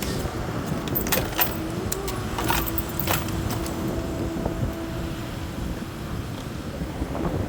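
Motor vehicle on the move: a steady low engine and road rumble with a held whine, and a run of sharp rattles and clicks in the first three seconds.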